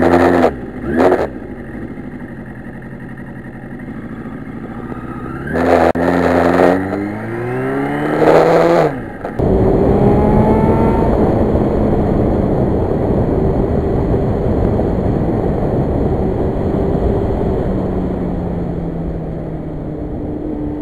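1991 Yamaha FZR1000's inline-four engine idling between several short throttle blips, the revs sweeping up and down. About nine seconds in it cuts to the bike being ridden, the engine running steadily under heavy wind noise on the microphone.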